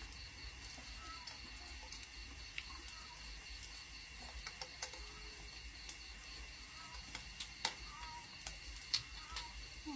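Night insects trilling steadily at two high pitches, with a low hum underneath. Scattered sharp clicks and clinks of metal tongs and utensils on the grill pan and bowls, the loudest two near the end.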